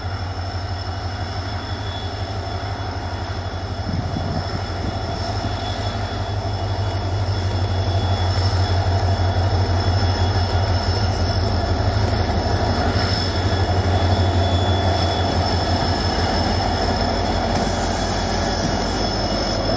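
WDG-4D diesel-electric locomotive running past under power, its EMD 16-cylinder two-stroke diesel engine giving a deep, fast-pulsing rumble over a steady high whine. It grows louder as the locomotive comes level, peaking about halfway through, and eases slightly as it goes by.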